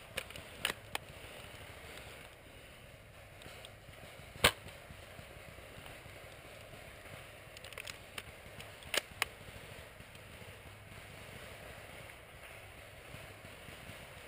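Scattered airsoft gunfire: a few sharp snaps near the start, the loudest single shot about four and a half seconds in, and two quick shots close together around nine seconds.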